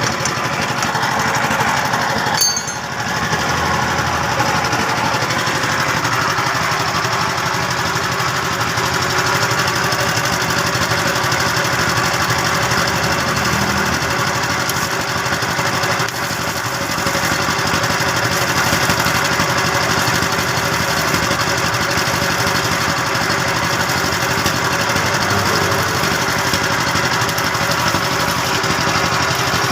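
Electric arc welding: a steady, loud crackle and sizzle of the arc, broken twice, briefly, about two and a half seconds and sixteen and a half seconds in.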